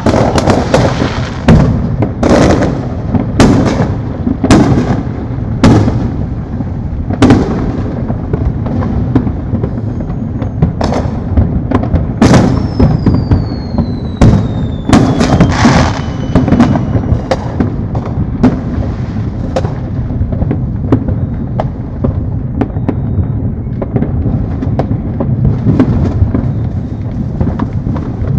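Fireworks going off all around: a continuous low rumble of distant bursts with frequent sharp, loud bangs closer by, thickest in the first half. About halfway through, a high whistle glides downward over the bangs.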